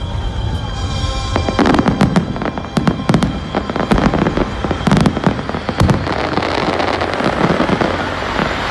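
Fireworks display: a rapid, irregular run of sharp bangs from aerial shells, thickening into dense, continuous crackling in the second half.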